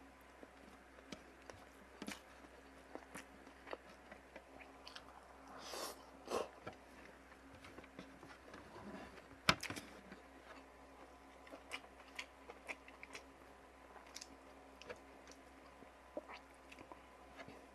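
Close-up eating sounds: a person chewing, with irregular wet clicks and small crunches. There is a louder sharp crack about nine and a half seconds in.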